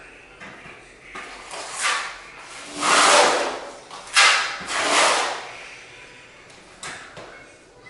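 A hand tool scraping in short, irregular strokes along the floor at the foot of a wall, about five strokes, the longest about three seconds in.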